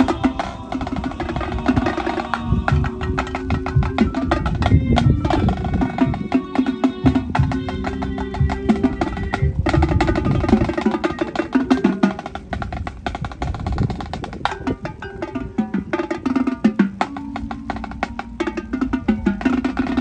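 High school marching band playing its field show, with drums and percussion to the fore: dense, rapid hits over sustained pitched notes.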